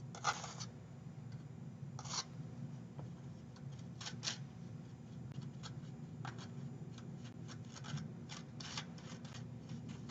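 A knife scraping up Bisque Fix paste and pressing it into a crack in bisque-fired ceramic: short scratchy strokes at irregular intervals, over a steady low hum.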